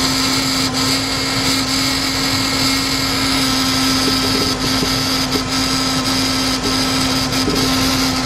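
Ford 5.4-litre V8 of a 2004 Lincoln Navigator idling, heard close up under the hood: a steady mechanical whir with a strong constant hum. The engine runs rough with a cylinder misfire.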